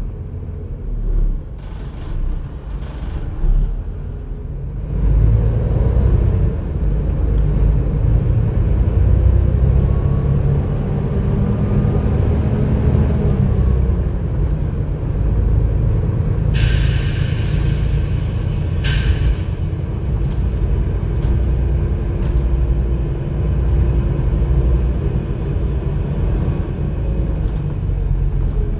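Volvo B7TL bus engine, a seven-litre six-cylinder diesel, heard from the upper deck: a low rumble that grows louder about five seconds in as the bus pulls away, with a faint rising whine from rising revs. About two-thirds of the way through, compressed air hisses sharply, once long and once short.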